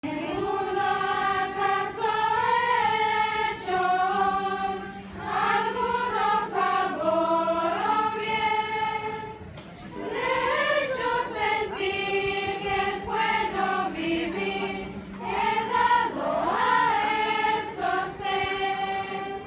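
Large church choir singing a hymn in long, held phrases, with a brief pause between phrases about halfway through.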